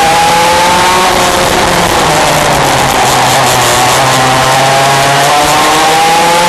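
Yamaha KT100 piston-port two-stroke kart engines at racing speed, heard from an onboard camera with heavy wind noise. The nearest engine climbs in pitch, falls off about a second in, runs lower through the middle, then climbs again near the end.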